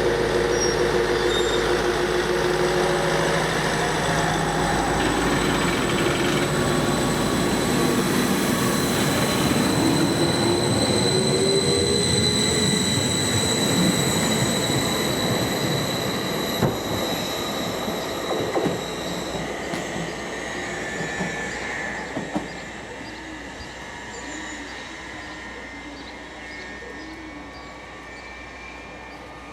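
A train at the platform with its engine running, then pulling away: a note rises in pitch as it accelerates, with a high wheel squeal, and a few knocks from the wheels in the middle. The sound fades steadily as the train leaves.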